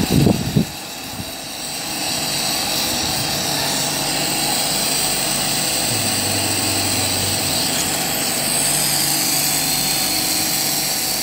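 Glassworking torch running steadily, a constant hiss of the flame with a low hum under it, while a glass rod is heated and shaped. A brief low thump right at the start.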